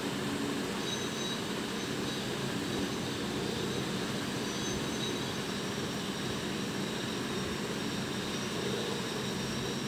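Chopped onions sizzling in oil in an aluminium kadai while a slotted metal spatula stirs them. A steady low rumble runs underneath.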